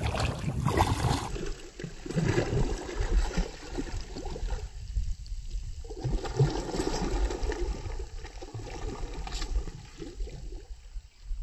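Water splashing and gurgling as a giant snakehead strikes a frog lure and thrashes at the surface of shallow, weedy water.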